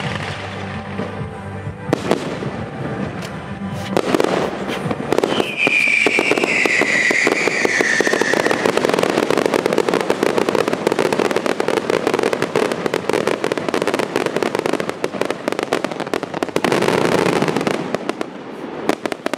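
Aerial fireworks bursting and crackling in a dense, rapid barrage from about four seconds in, with a falling whistle a couple of seconds later, thinning out near the end. Music plays under it at the start.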